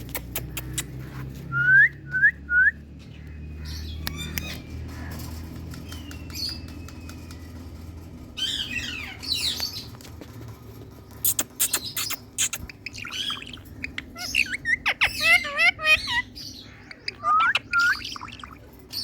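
Pet Indian parrot calling: three short chirps about two seconds in, then, from about halfway, a run of rapid chattering and squawking notes mixed with sharp clicks.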